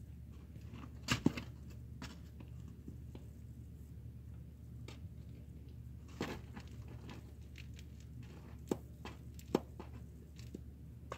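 Kittens scuffling and playing on cardboard and a padded cat bed: scattered light knocks, taps and scratches, with a pair of sharper knocks about a second in and a few more later, over a steady low hum.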